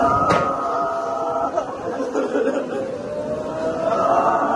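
Crowd of mourners chanting and crying out together, with long drawn-out calls held on one pitch and then rising. There is a short sharp click just after the start.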